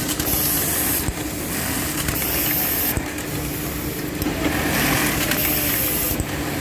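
LOIVA automatic button-attaching machine with its vibratory bowl button feeder running: a steady hum under a mechanical hiss, with bursts of higher hiss coming and going about every two seconds.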